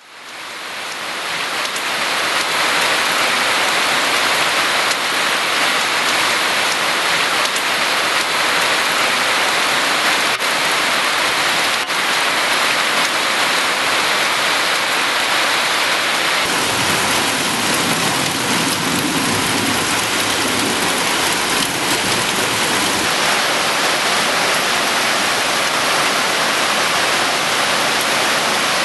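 Heavy rain pouring down onto surfaces: a dense, steady hiss that fades in over the first couple of seconds. About halfway through, a deeper rushing layer joins it for several seconds.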